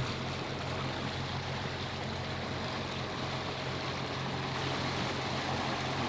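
A sailboat's engine running under motor, a steady low drone, with water and wind rushing past the hull.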